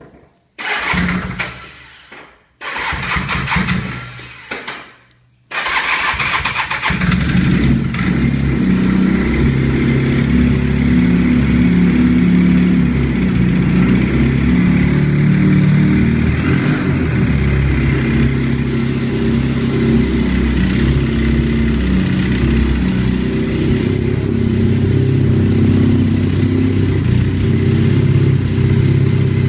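Honda CBR 450SR motorcycle engine cold-started: two short bursts of cranking, then it catches about five seconds in and settles into a steady fast idle. The owner says the engine is making a strange noise.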